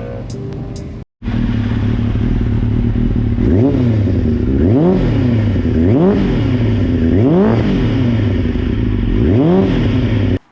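Motorcycle engine idling and revved with about five quick throttle blips, its pitch rising and falling back to idle each time. It starts abruptly about a second in, after a brief cut to silence, and stops suddenly near the end.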